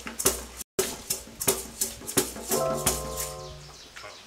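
Music with a steady drum beat, about three hits a second. A held low note with higher tones above it comes in past halfway and fades near the end. The sound cuts out for an instant under a second in.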